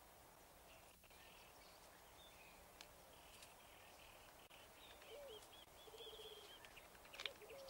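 Near silence: faint outdoor ambience, with soft, high bird chirps coming in about five seconds in.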